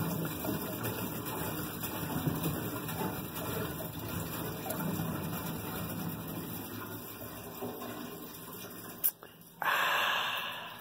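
Gasoline gurgling as it pours from a plastic gas can into the combine's fuel tank, fading out about nine seconds in, followed by a click and a brief louder rushing noise near the end.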